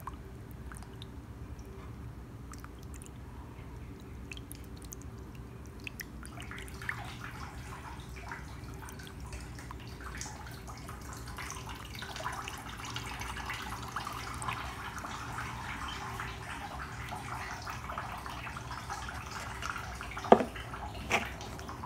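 Water poured onto a car windshield, splashing and trickling down the glass into the slot along its base, to reproduce a leak; it starts faint several seconds in and grows louder. A single sharp knock near the end.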